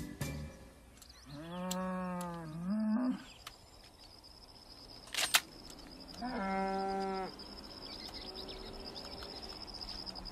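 A cow mooing twice, a long low call about a second in and another about six seconds in. A single sharp click comes between the two calls, and a steady thin high tone runs underneath from about three seconds in.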